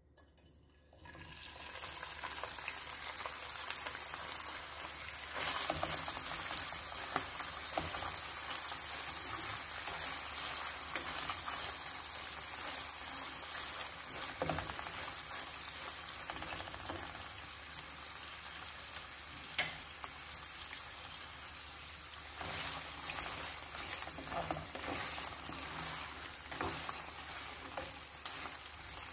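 Chunks of pre-boiled beef frying in hot oil in a pan: a steady sizzle that starts about a second in as the meat goes in, with the scrapes and knocks of a wooden spoon stirring it.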